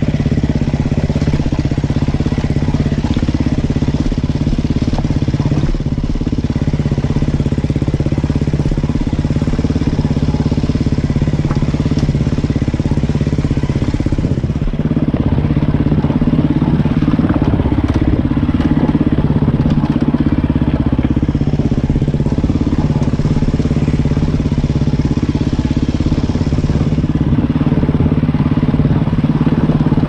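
Off-road vehicle engine running steadily while riding a rough trail.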